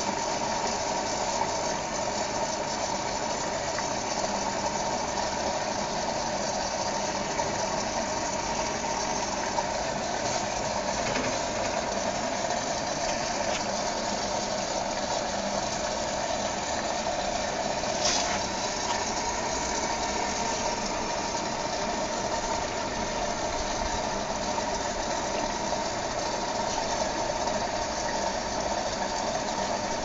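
Philips Whirlpool AWG 371 front-loading washing machine running at the start of a wash cycle, a steady mechanical hum with its drum and load of wet laundry. A single sharp click about two-thirds of the way through.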